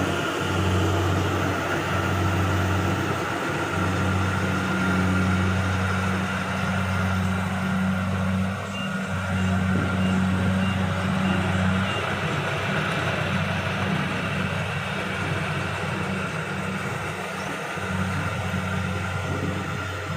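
Kubota Harvest King 2 rice combine harvester running steadily in the field, with a low engine drone under a broad mechanical clatter of its threshing machinery.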